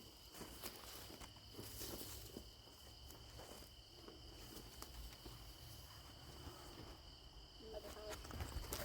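Faint, steady high-pitched insect trilling, with soft scattered rustles and small knocks from footsteps and handling of soil and plants.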